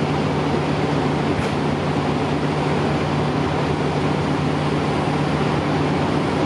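Steady, unchanging drone of a diesel train standing at the platform, its engine running with a constant low hum.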